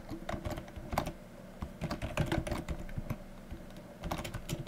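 Typing on a computer keyboard: irregular key clicks in short runs, with brief pauses between them.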